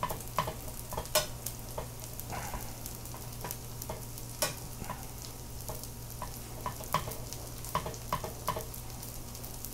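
Small dried anchovies frying in plenty of oil in a pan while being stirred: a faint sizzle with scattered light clicks and scrapes of the utensil against the pan, over a steady low hum.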